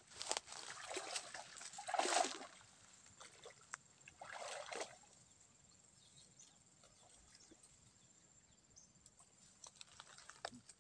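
Wading through shallow swamp water among reeds: sloshing, splashing steps in the first five seconds, loudest about two seconds in, then only faint scattered ticks.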